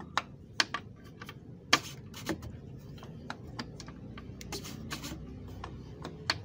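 Irregular clicks and clacks of a socket wrench, about two or three a second, with a few short scrapes, as the plastic oil filter housing cap on the Amarok's engine is worked loose.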